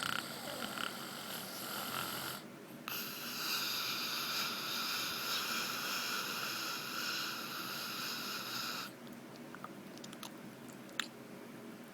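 A man snoring with a wheezing, hissing breath. After a brief pause about two seconds in, one long snore breath runs for about six seconds. A quieter stretch with a faint click or two follows.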